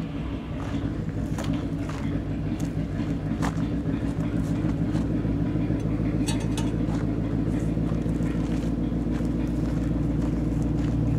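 Engine of a 1984 Nissan 720 pickup idling steadily, a little louder near the end, with scattered light clicks and knocks from work around the truck.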